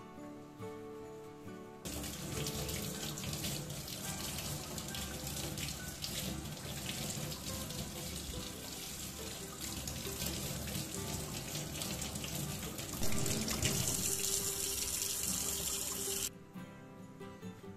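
Kitchen tap running into a stainless steel sink while button mushrooms are rinsed by hand under the stream. The water starts about two seconds in, gets louder for its last few seconds, and stops abruptly shortly before the end. Background music plays under it.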